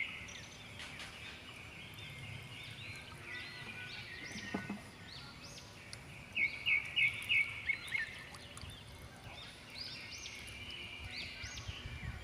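Birds chirping: runs of quick, repeated high chirps, the loudest a fast run about six to seven seconds in.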